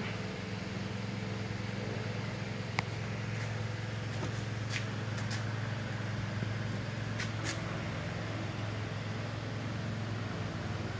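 Goodway 1640 lathe humming steadily while a keyway is broached in a pulley bore. One sharp metallic click sounds about a quarter of the way in, and a few light ticks follow in the middle.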